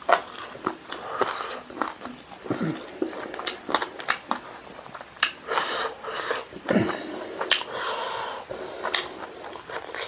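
Wet chewing and lip smacking of a person eating chicken and rice by hand, with many sharp mouth clicks and smacks.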